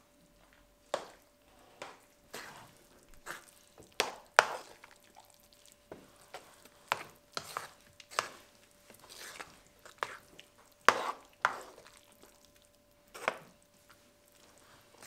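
A metal slotted spoon knocking and scraping against a non-stick frying pan as thick risotto is beaten to work in butter and parmesan (mantecatura). Irregular sharp clacks come about once or twice a second, some much louder than others, over a faint steady hum.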